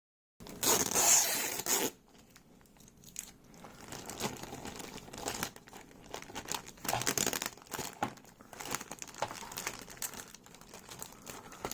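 Packing tape being torn off and packaging crinkled while unwrapping a boxed item: a loud tearing rip about half a second in, then irregular crinkling and rustling.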